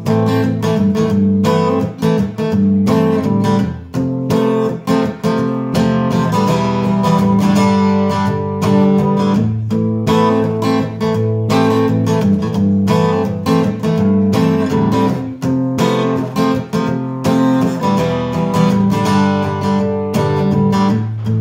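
Sunburst Gibson jumbo acoustic guitar strummed in a steady rhythm of chords, an instrumental break with no singing.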